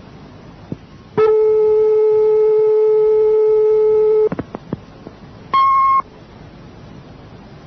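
Answering machine tape playback: a steady telephone line tone held for about three seconds, a few sharp clicks, then a short high beep that marks the start of the next recorded message, all over a constant tape hiss.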